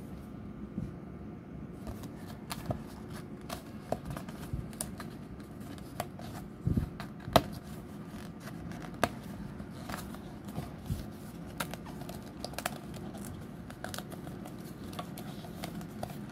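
Die-cut cardstock sheet handled and flexed: irregular paper crackles and clicks, the loudest snap about seven seconds in, over a low steady hum.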